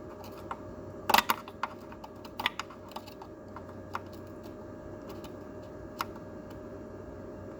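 Scattered light clicks and taps of hands and a small tool working on a car amplifier's loose cooling fan, a quick cluster about a second in and single clicks after, over a steady low hum.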